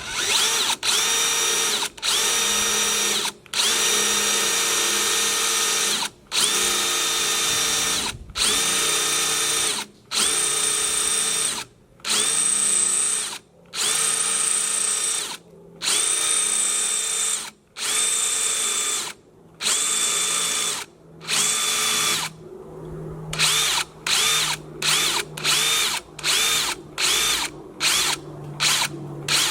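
Power drill boring holes to a one-inch depth, run in repeated bursts of a second or two, its motor whine spinning up with each trigger pull and dying away in the gaps. In the last several seconds the trigger is pulsed in quick short bursts, about two a second.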